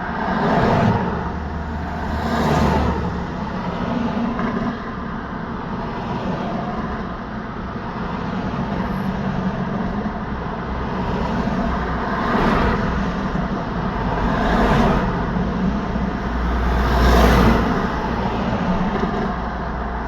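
Road traffic: a steady hum of tyres and engines with about five vehicles passing close, each swelling up and fading away, the loudest near the end with a deep rumble.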